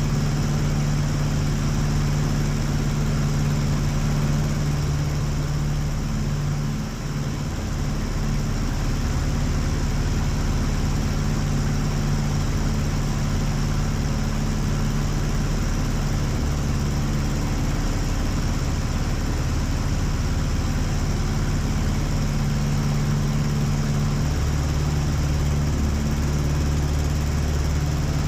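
Aeronca Chief's Continental A-65 four-cylinder engine and propeller droning steadily in cruise flight, with a slight dip about seven seconds in.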